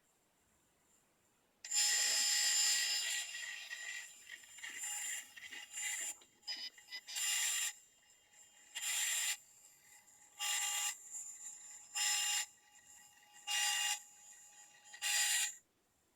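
DJI Phantom 3 Standard camera gimbal motors making a high-pitched buzz of several tones. It starts about two seconds in and runs for a second and a half, then comes back in short half-second buzzes roughly every second and a half. This is the abnormal noise the owner reports as a gimbal fault.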